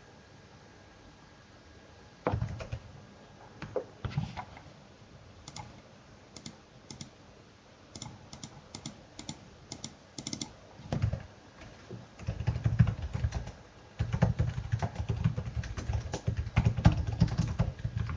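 Typing on a computer keyboard: scattered single keystrokes at first, then a fast, dense run of typing through the second half.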